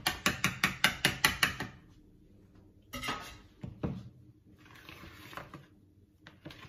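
Wire balloon whisk beating cake batter in a metal mixing bowl, clinking against the bowl in quick strokes, about seven a second, for the first second and a half. Then a few softer knocks and scraping in the bowl as the batter is stirred.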